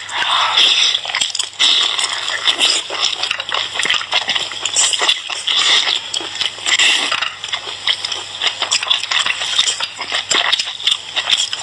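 Close-up wet chewing, sucking and slurping of boiled sea snail meat, a dense run of quick smacks and clicks.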